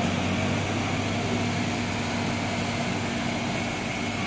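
A coach bus's diesel engine idling, a steady low hum.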